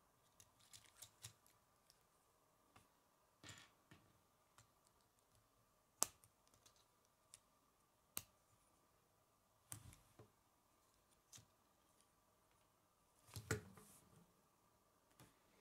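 Plastic K'nex rods and connectors clicking and snapping together as they are fitted by hand: scattered faint clicks, the loudest about six seconds in. Near the end a short burst of clicks and a low knock as the model is set down on a wooden table.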